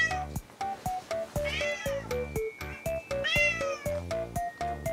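Background music with a steady run of plucked notes and a beat, over which a cat meows twice, about a second and a half apart. Each meow rises and falls in pitch.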